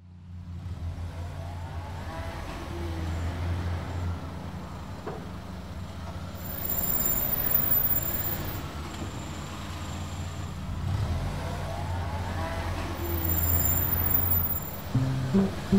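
A steady low rumble with faint gliding tones above it, swelling twice. Plucked music notes come in near the end.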